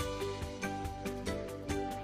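Background music: a melody of plucked or picked notes over a steady low part, with new notes coming about every quarter to half second.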